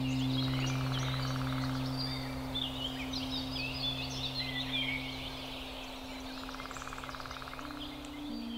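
Birds chirping and singing, with two short buzzy trills, over a steady low sustained music drone that slowly fades. New low notes enter near the end.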